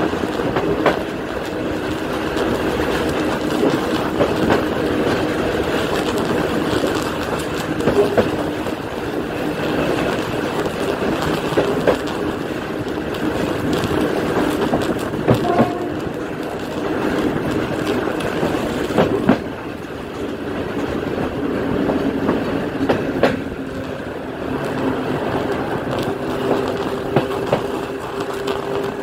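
Electric train running, with its pantograph arcing on ice-coated overhead wire: a dense crackling over the steady running noise and hum. Sharper clicks come about every four seconds as the wheels cross rail expansion gaps.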